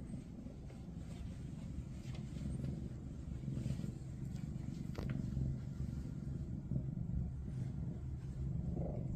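Maine Coon cat purring, a steady low rumble, with a faint click about five seconds in.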